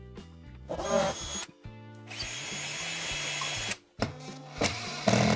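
Power drill boring a single fixing hole into the wall for a radiator bracket, starting about two seconds in, running steadily for about a second and a half, then stopping suddenly. Background music plays underneath.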